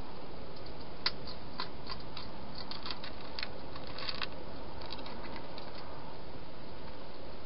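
Irregular quick clicks and crackles of small animals eating dry food at the feeding bowls, sharpest about a second in and thickest around three to four seconds in, over a steady hiss.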